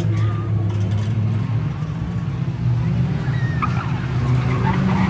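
Engines of a pack of 1600-class hatchback race cars running together on a dirt oval, a steady drone, with a few short high squeals about three and a half seconds in.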